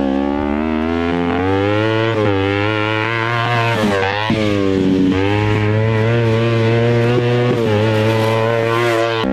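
Off-road buggy's small engine running under load at fairly steady revs as it drives across rough ground, its pitch dipping briefly and recovering a few times.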